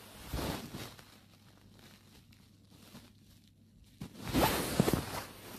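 Rustling and rubbing of clothing against a handheld phone's microphone as the phone is moved, in two bursts: a short one about half a second in and a louder, longer one about four seconds in.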